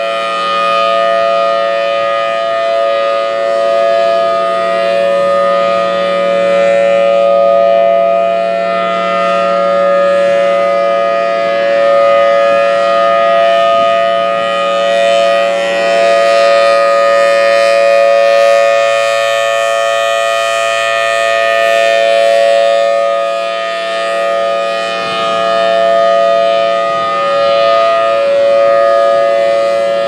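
Federal Signal Thunderbolt 1003 tornado siren sounding a steady alert tone at a constant pitch as its horn rotates, so the sound swells and fades every several seconds as the horn turns toward and away.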